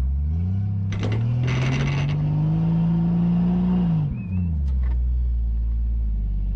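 Off-road vehicle engine revving up hard under load while towing a stuck truck on a rope through sand, held high for a couple of seconds, then dropping back to idle. A loud rushing, rattling noise comes about one to two seconds in.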